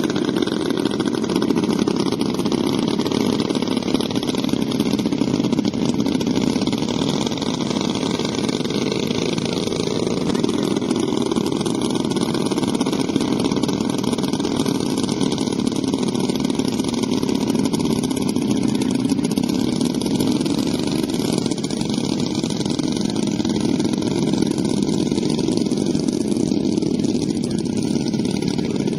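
Four two-stroke chainsaw engines of a large-scale B-29 model airplane running steadily together as it taxis.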